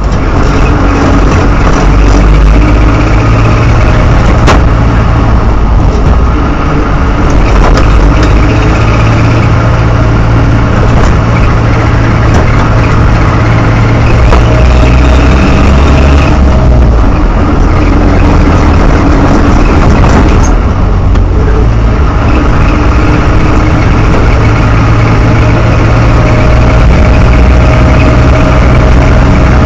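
Land Rover Series IIA engine running steadily, with a cyclic chirping squeal that keeps coming back over the engine note.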